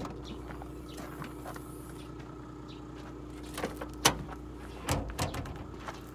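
Rear split tailgate of a Toyota Land Cruiser 100-series being opened by hand: sharp clicks of the lower tailgate latch releasing about three and a half to four seconds in, then heavier clunks as the lower tailgate drops open about five seconds in, over a steady low hum.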